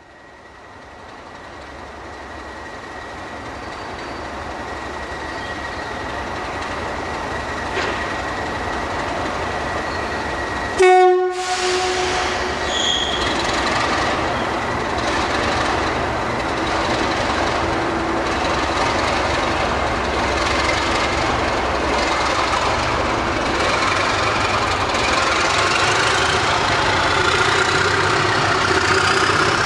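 Two British Rail Class 37 diesel-electric locomotives with English Electric V12 engines, heading a train. The engines run steadily and grow louder as the train gets under way, with one short, loud horn blast about eleven seconds in. Near the end a rising whine builds as the engines are opened up, with smoky exhaust.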